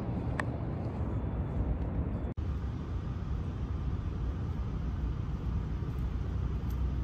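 Steady low rumble of distant road traffic, dropping out for an instant about two and a half seconds in.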